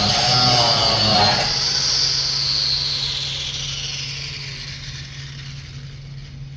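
A handheld power tool running with a wavering whine, then switched off about a second and a half in and spinning down, its pitch falling and fading over several seconds, over a steady low electrical hum.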